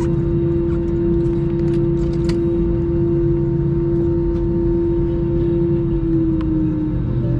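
Airbus A321 jet engine whine heard inside the cabin over a low rumble, a steady high hum that starts to slide down in pitch near the end as the engines wind down.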